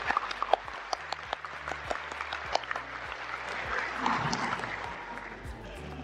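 Audience applauding, the clapping thinning out and getting quieter toward the end.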